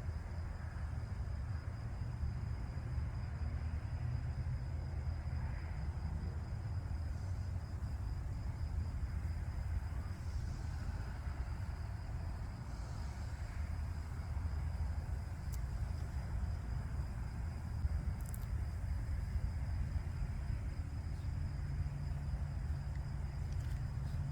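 Steady low outdoor background rumble with a thin continuous high-pitched tone over it, and a few faint ticks near the end.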